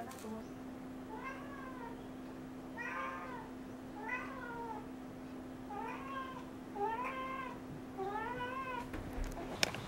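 A domestic cat meowing six times, each meow rising then falling in pitch, spaced about one to two seconds apart. A faint steady hum runs underneath and stops shortly before the end.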